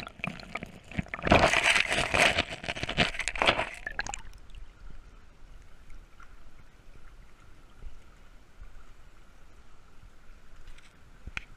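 Creek water sloshing and splashing loudly for about three seconds, heard close, as if around a camera in the stream, then dropping to a quieter steady hiss of running water.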